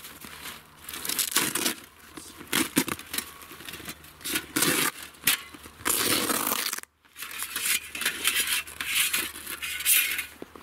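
Rustling of a fabric carry bag as the folded metal plates of a Skotti portable grill are taken out of it, in irregular bursts with a few sharp knocks.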